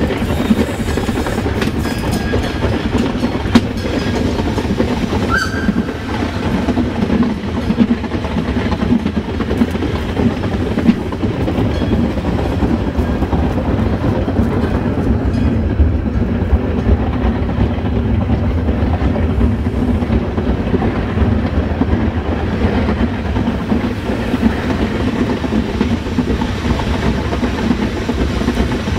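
Metre-gauge Ferrovia Mesolcinese train running along the line, heard from inside its rear cab: a steady low rumble of wheels on rail with scattered sharp clicks and knocks. A brief high squeak sounds about five seconds in.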